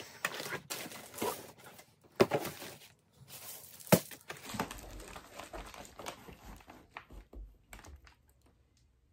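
Plastic padded mailers crinkling and cardboard shipping boxes being handled and stacked, with two sharp knocks about two and four seconds in, the second the loudest. The handling then grows quieter and dies away near the end.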